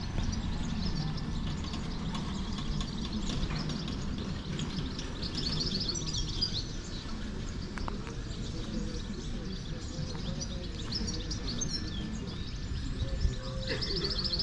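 Small birds chirping in short bursts from the trees, about a third of the way in, again later and near the end, over a steady low background rumble of the town square.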